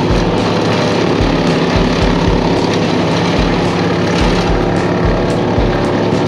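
Brush wood chipper's engine running steadily as branches are fed into it.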